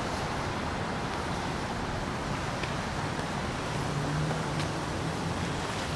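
Street traffic on a wet day: a steady hiss of passing vehicles, with a low engine hum rising and fading about halfway through.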